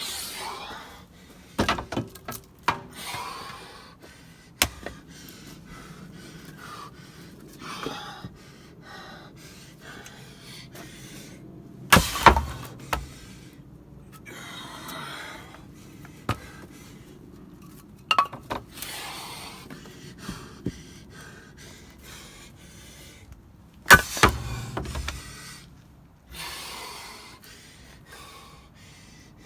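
Ash firewood being split: a series of sharp strikes and cracks, the loudest about 12 and 24 seconds in, with breathy, rustling noise between them.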